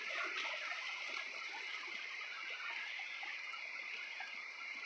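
Steady high-pitched hiss of outdoor night ambience, with faint scattered sounds underneath and no clear single event.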